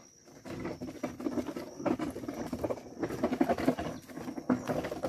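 Hooves of a yoke of oxen and the log they drag crunching and scraping on a gravel road, an irregular crackle that grows louder about half a second in as the team passes close.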